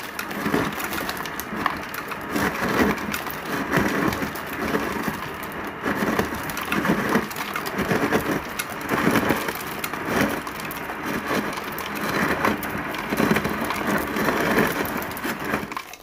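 Kenmore refrigerator (model 106.56546401) ice dispenser in crushed-ice mode, its crusher running and crushed ice pouring into a styrofoam cup with a continuous crackling, grinding rattle that swells and dips. It stops right at the end as the dispensing ends.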